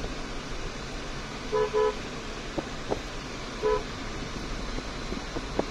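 Vehicle horn tooting two short beeps in quick succession, then one more beep a couple of seconds later, over the steady engine and road noise heard inside a moving car's cabin.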